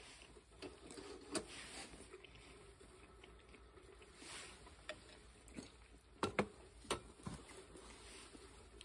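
Soft rustling and several light knocks and clinks of tableware: a metal bowl of food and chopsticks being set down on a steel camp table, with a quick run of knocks a little past the middle.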